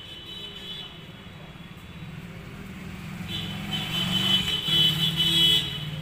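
A motor vehicle's engine passing by, building up from about halfway and loudest near the end, with a high thin whine over it during the loudest part.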